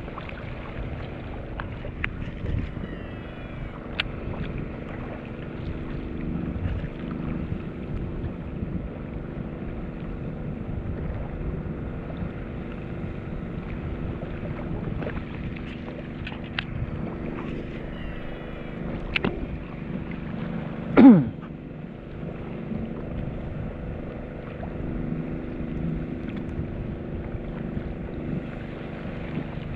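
Boat engine running steadily, with wind on the microphone. About two-thirds of the way through, a brief loud sound slides down in pitch.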